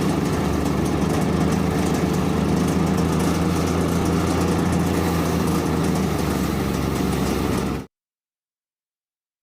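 An engine running steadily at a constant speed, cutting off abruptly about eight seconds in.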